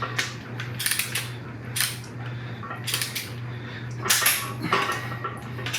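Sharp metallic clicks and clinks from a torque wrench on the cylinder head bolts of a 5.3 L LS V8, as the bolts are re-checked at 80 ft-lb. There are about five separate clicks, over a steady low hum.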